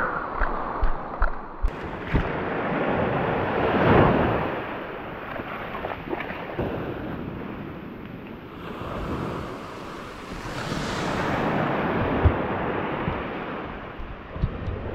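Small waves washing up a sandy beach, swelling about four seconds in and again near the ten-second mark, with wind on the microphone and a few light knocks.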